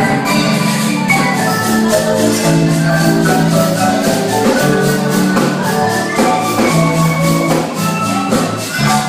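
Marimba playing a lively tune, a dense stream of rapidly repeated mallet strikes on its wooden bars with several notes sounding at once.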